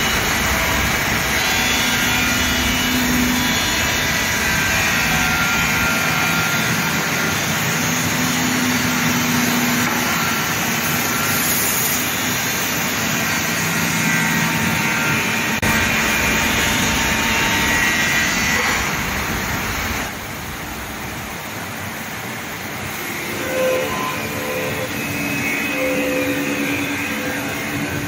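Flextech SEW-2010 CNC glass edge grinding and polishing machine running, a steady mechanical whir and hiss as it works a glass panel held on suction cups. The noise drops somewhat about twenty seconds in.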